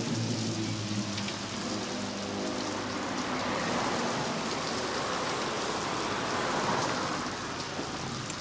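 Steady rain falling, with a low steady hum that fades away over the first few seconds.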